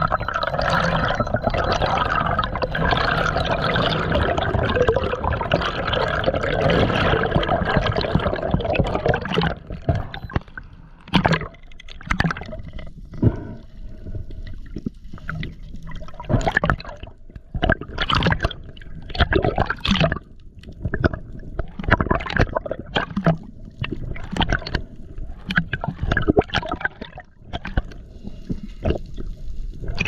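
Water gurgling and sloshing for about nine seconds, then quieter, broken by a run of irregular short knocks and splashes.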